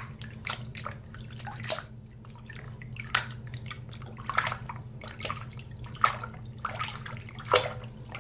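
Water sloshing and splashing in a filled bathroom sink as a hand swishes and rubs a plastic phone case under the water, in irregular splashes about once or twice a second over a steady low hum.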